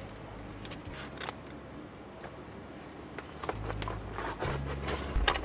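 Plastic wrapping around a canvas painting crinkling and rustling in scattered crackles as the painting is handled, over a low rumble that grows stronger about three and a half seconds in.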